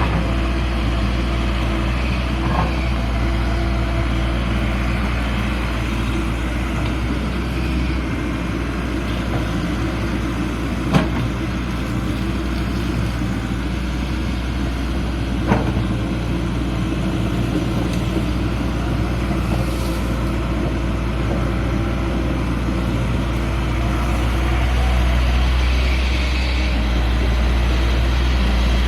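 Excavator's diesel engine running steadily, with two sharp knocks about four seconds apart near the middle. The engine grows a little louder near the end.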